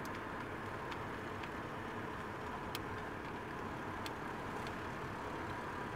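Steady engine and tyre noise inside the cabin of a car driving along a road, with a few faint clicks.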